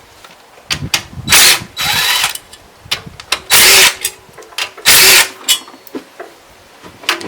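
Power tool, most likely an impact wrench, run in four short bursts about a second apart, each trailing off with a brief whine as the motor spins down, loosening bolts on the truck's underside.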